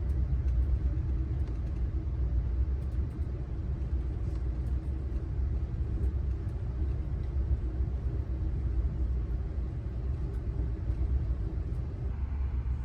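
Steady low rumble of a moving Amtrak Adirondack passenger train, heard from inside the coach.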